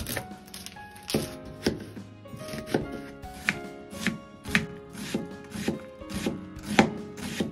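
Chef's knife chopping an onion on a plastic cutting board, in slow, spaced strokes roughly two a second, over background music.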